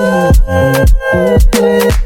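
Background music: an Afrobeat-style dance track with a steady kick-drum beat about twice a second under sustained keyboard chords.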